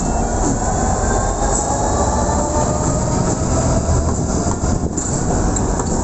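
Diesel-hauled passenger train passing close by: a DRS Class 66 and the Class 31 D5631 locomotives, then coaches, with a steady rumble of wheels on rail and the engine tones sliding gradually lower as the locomotives go by. Later come a few sharp clicks of wheels over rail joints.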